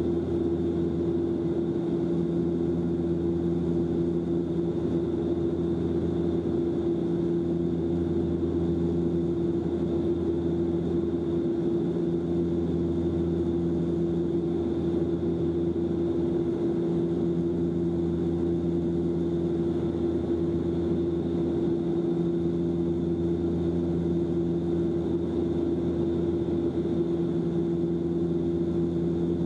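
Cabin noise of a Bombardier Dash 8 Q400 turboprop in flight: a steady propeller drone made of a low hum and several steady tones, with a faint high whine above it.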